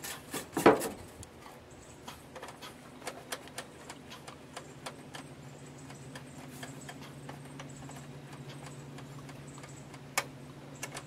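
Irregular light clicks and taps of hand work on a 4A032 military engine's fuel system, with one louder thump of a metal fuel can set down about a second in. A faint steady low hum comes in about halfway.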